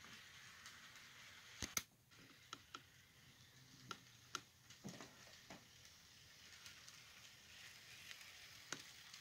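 Near silence with scattered faint clicks and taps from a camera tripod being adjusted, the loudest a quick double click a little under two seconds in.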